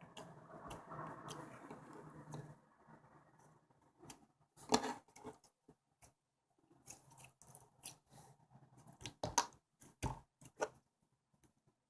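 Close-up handling noises: irregular sharp clicks and crackles, with a loud snap about five seconds in and a cluster of clicks around nine to ten seconds.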